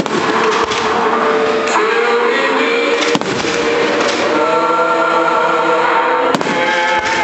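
Fireworks display: a few sharp bangs of aerial shells over loud music playing throughout.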